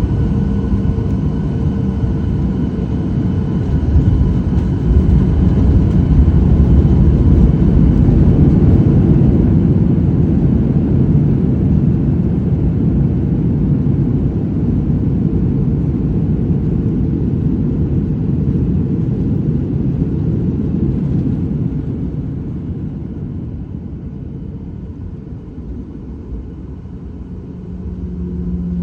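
Boeing 737-800 landing rollout heard from inside the cabin: a loud rumble of engines and wheels on the runway with a steady engine whine. It swells about four seconds in, then dies down gradually as the plane slows.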